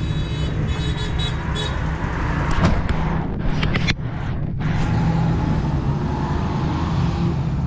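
A truck's diesel engine running steadily at idle, a low pulsing rumble. A high, horn-like tone sounds for about the first second and a half, and a few sharp clicks come about halfway through.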